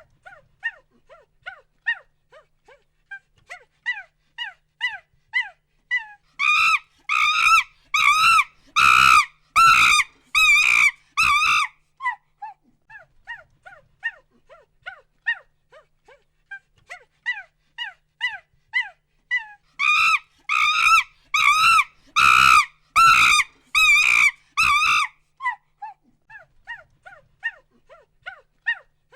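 Chimpanzee pant-hoots: runs of short hoots that quicken and climb into a series of loud screams, then fall back to scattered hoots. The build-up and screaming happen twice.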